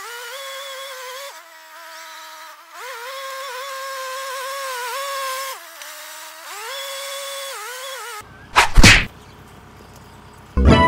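Compact tractor's engine pulling a rotary tiller through a flooded rice paddy, a thin buzzing drone that rises and falls in pitch as the load changes. About eight seconds in it cuts off, and two loud whooshes follow, then a sharp hit near the end.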